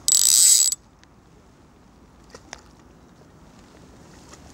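Centrepin reel's ratchet buzzing as the reel spins while a hooked bream is played. It stops abruptly under a second in, leaving only faint rustles and a couple of small clicks.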